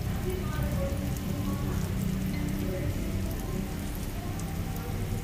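Sisig sizzling on a hot cast-iron sizzling plate: a steady dense hiss with scattered fine crackles as the oil and raw egg fry.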